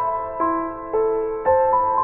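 Slow background music on a piano-like keyboard, with new sustained notes struck about every half second.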